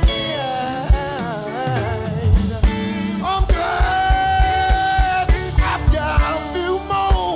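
Male gospel lead singer singing live over a band, his voice sliding through runs and then holding one long note about halfway through, over a steady low drum beat.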